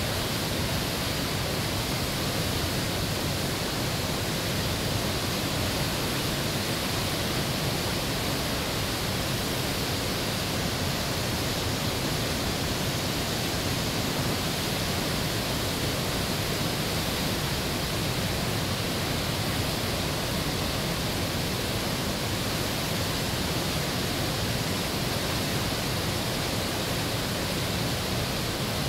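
The Great Falls of the Potomac River: whitewater pouring over rock ledges and through rapids, a loud, steady rush of water that does not change.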